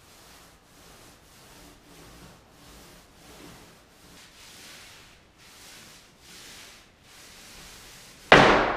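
Paint roller rolling over drywall in regular swishing strokes, about one a second. Near the end a sudden loud crash of something falling over, which is then blamed on the cat.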